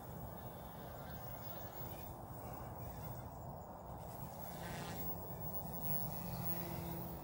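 OMPHOBBY M1 EVO gearless electric RC helicopter in flight at a distance: its motor and rotor blades buzzing steadily.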